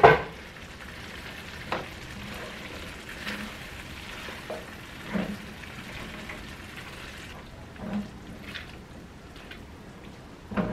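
Tofu coconut curry simmering and sizzling in a non-stick frying pan while a silicone spatula stirs it, with a loud knock right at the start and a handful of softer knocks of the spatula against the pan.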